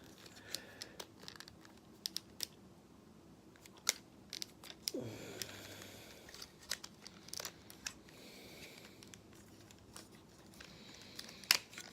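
Plastic parts of a Transformers action figure being handled, shifted and pegged together during transformation: faint scattered sharp clicks and light rubbing.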